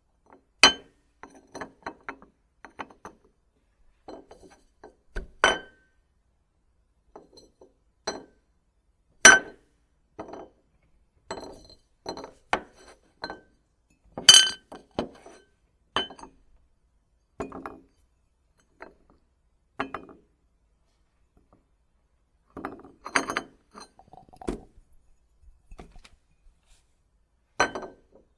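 Ceramic dishes and glassware being set down on a hard surface one at a time, a series of separate clinks and knocks, some with a short bright ring, a few seconds apart.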